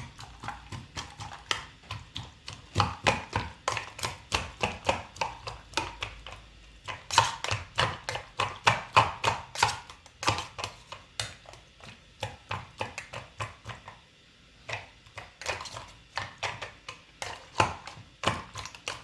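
A cocktail muddler pounding cucumber slices, raspberries and mint leaves in vodka and lime juice. It makes a rapid run of short knocks against the bottom of the mixing vessel, about three a second, with a brief pause about 14 seconds in.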